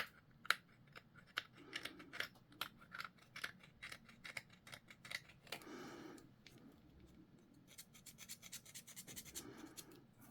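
Hobby clippers snipping at a plastic model kit's parts, faint, with many small sharp clicks. There is a short scraping rub about six seconds in, and a quick run of small clicks near the end.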